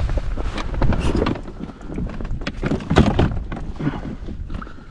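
Wind buffeting the microphone, with a scatter of irregular knocks and clatter, the loudest about three seconds in.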